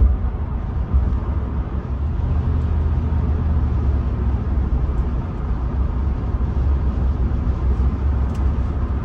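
Steady low rumble of road and engine noise heard inside the cabin of a Rolls-Royce Silver Spirit cruising at road speed.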